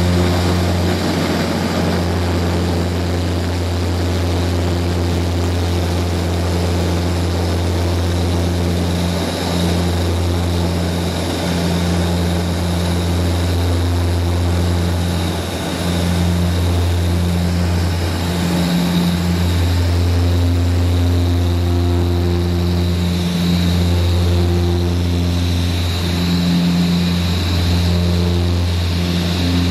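Embraer EMB-120 Brasilia's Pratt & Whitney Canada PW118 turboprop and four-blade propeller running steadily, heard from inside the cabin while the airliner moves on the ground. A loud, low propeller drone that swells and dips slowly every few seconds.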